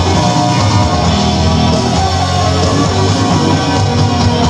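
Loud pop-rock music with guitar.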